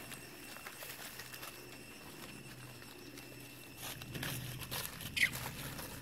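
Dry fallen leaves crinkling and rustling as a young macaque walks and forages through the leaf litter, the rustling growing stronger about four seconds in. A short, high squeak sounds near the end.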